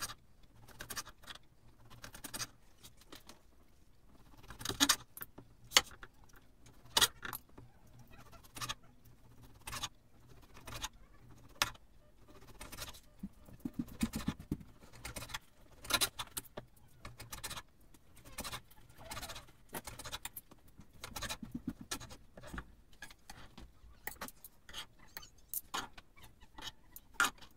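Carving knife and carving fork working through a cooked beef pot roast on a wooden cutting board: irregular clicks and taps of the blade striking the board, with light metallic clinks.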